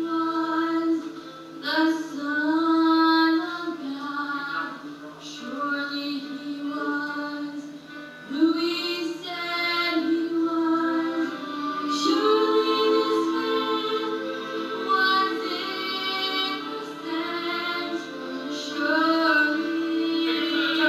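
Music with a woman singing long, held notes, heard through a television's speaker, so it sounds thin with no bass.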